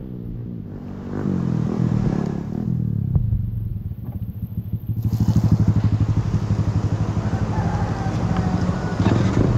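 Motorcycle engine running as the bike rides along a wet road, with a steady pulse from the exhaust. It gets louder from about five seconds in, with tyre and wind hiss.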